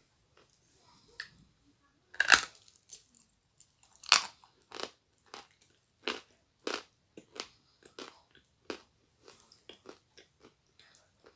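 Biting into a lump of dry edible chalk and chewing it. Two loud, crisp bites come about two and four seconds in, then a steady run of crunches, roughly one and a half a second, that grow fainter toward the end.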